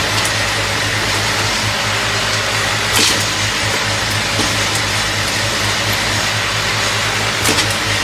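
Automatic nail polish filling and capping machine running: a steady motor hum with a faint high tone, and short hisses about three seconds in and again near the end.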